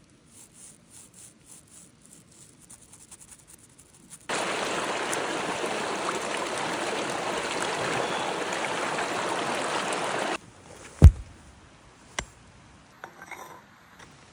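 A stream's running water, loud and steady, as a raw lamb's head is washed in it by hand; it cuts in and out abruptly. Before it come soft rhythmic taps, and after it two sharp thumps about a second apart.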